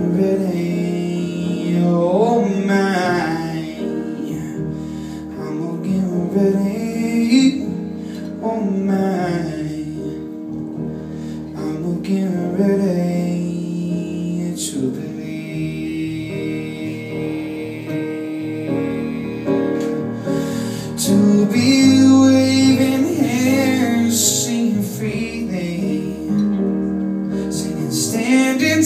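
A live band playing a soul song: a singer over piano and band accompaniment.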